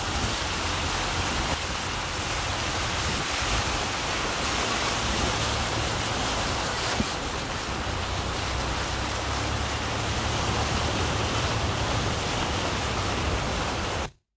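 A car's front tyre ploughing through shallow floodwater on a road, throwing up a steady rushing spray, with a low rumble underneath. The sound cuts off suddenly near the end.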